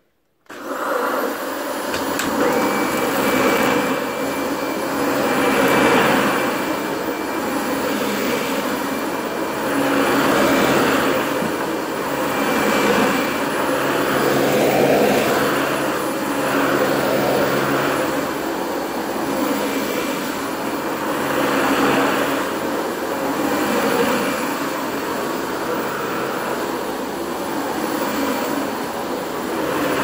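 Dyson upright vacuum cleaner switched on about half a second in, then running steadily with a thin whine. Its sound swells and eases about every two seconds as it is pushed back and forth over the carpet.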